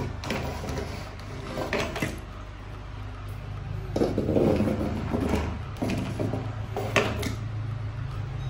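Small toy cars knocking and scraping against a wooden board as they are pushed by hand, in a handful of separate clacks and rubs, over a steady low hum.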